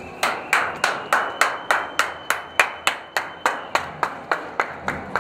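Steady rhythmic clapping, about three and a half crisp claps a second.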